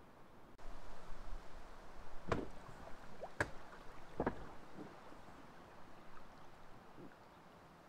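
Three sharp hollow knocks against a canoe hull about two, three and a half and four seconds in, as someone gets into the canoe and pushes off, followed by softer paddle and water sounds.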